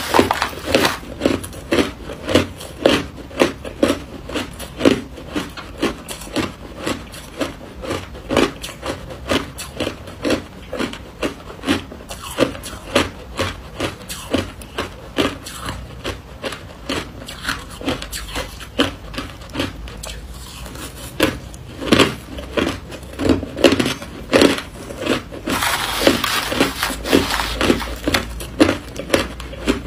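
Crushed ice being chewed: steady crisp crunching, about three crunches a second. Near the end there is a longer rustling scrape as a spoon scoops through the crushed ice in a metal tray.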